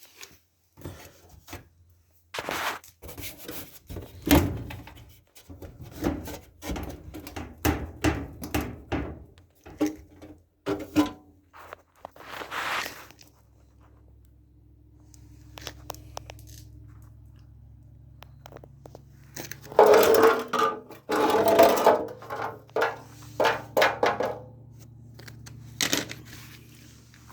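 Handling noises from taking apart a clothes dryer: a string of knocks, clicks and scrapes from its metal and plastic parts, with a loud burst of clattering about twenty seconds in.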